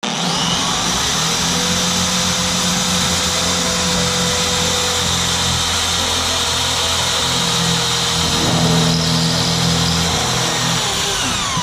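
Power drill running continuously under load, its pitch sagging slightly over the stretch.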